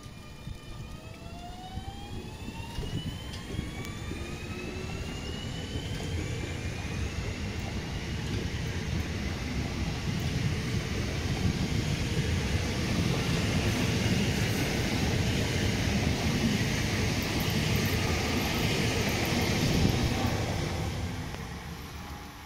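Two coupled HLB electric multiple units pulling out, their traction motors whining and rising in pitch as they accelerate. The rumble of wheels on rail grows as the cars pass close by and fades away near the end.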